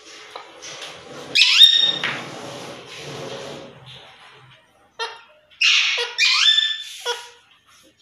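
Green parakeets squawking: one loud, harsh call about a second and a half in, then a run of four shorter squawks between about 5 and 7 seconds, each rising sharply in pitch and then holding.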